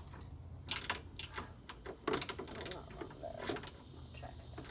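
Socket ratchet clicking in short irregular runs as a bolt is turned by hand, with metallic clicks and taps from the tool on the tractor.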